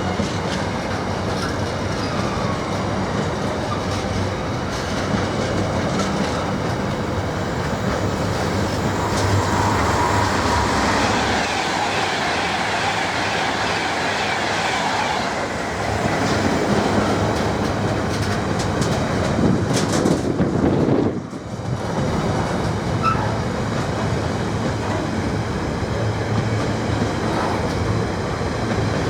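A train running on the rails, with wheels clicking over the rail joints, steady throughout apart from a brief dip about 21 seconds in.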